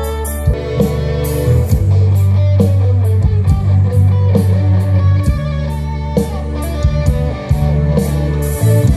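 Live band playing through a large outdoor PA system with a four-box subwoofer stack: electric guitar over a drum kit and heavy bass notes held for a second or two at a time.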